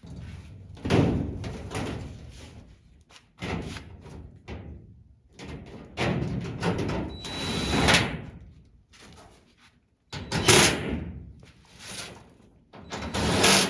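A large plastic body-panel sheet being handled while its protective film is peeled off: about six loud crackling, flexing bursts of plastic, each lasting a second or more.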